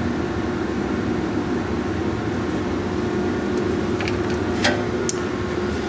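Steady hum of running shop machinery with a constant tone, and a couple of faint clicks about four seconds in.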